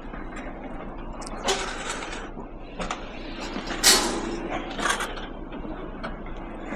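Scrap being handled at a skip: about five short knocks and rattles over a few seconds, the loudest about four seconds in, over a low steady rumble.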